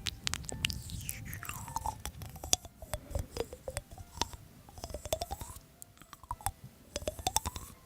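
Someone chewing and biting crunchy food close to the microphone, with many crisp crackles and clicks. Faint whistle-like tones sweep down and back up every couple of seconds.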